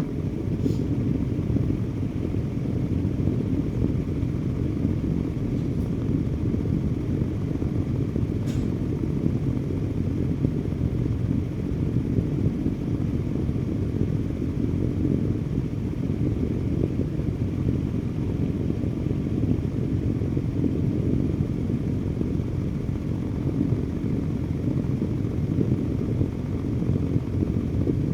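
Electric fan running steadily: a constant, deep rushing noise with no change in speed, and two faint ticks in the first several seconds.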